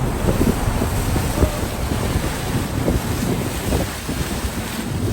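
Wind buffeting the microphone aboard a tour boat at sea: a loud, rumbling rush with irregular gusts, mixed with the noise of the boat moving over the water.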